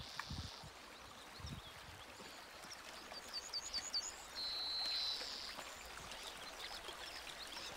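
Small mountain creek running over rocks. About halfway through, a quick series of about six short high chirps and a brief held high note; a couple of soft low knocks in the first two seconds, as from footsteps or trekking poles on the stepping stones.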